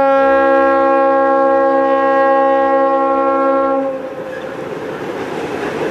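Norfolk Southern diesel locomotive's air horn sounding one long, loud blast, a chord of several notes, that cuts off about four seconds in. After it the train's steady running rumble is left as it comes on across the trestle.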